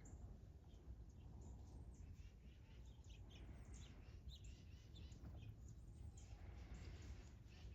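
Quiet outdoor backyard ambience with scattered short bird chirps over a steady low background noise.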